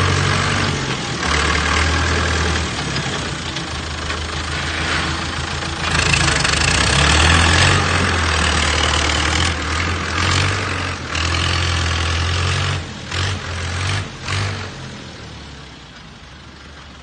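Engine of a heavy land-clearing machine (tractor or bulldozer) running, its note and load shifting, with a few brief dips late on before it grows quieter near the end.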